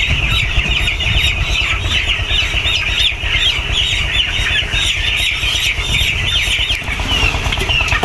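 A large flock of chickens in a poultry shed calling together: a dense, unbroken chorus of short, high cheeps, with a low rumble underneath.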